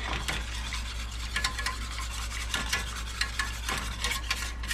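Wire whisk stirring a heating basting sauce in a stainless steel saucepan: a quick, uneven run of scrapes and light clicks of the wires against the pan.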